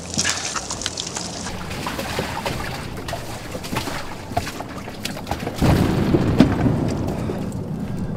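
War-film battlefield ambience: a crackling hiss with scattered small clicks, then about five and a half seconds in a deep rumbling boom of distant shellfire that slowly dies down.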